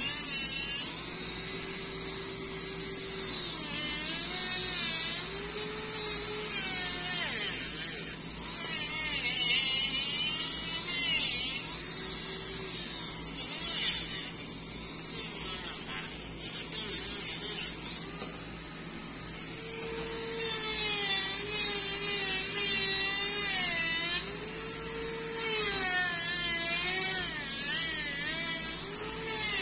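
Dental lab micromotor handpiece spinning a cone-shaped bur against the acrylic of an upper orthodontic retainer, trimming and finishing it. A steady high whine whose pitch wavers up and down as the bur bites into the plastic.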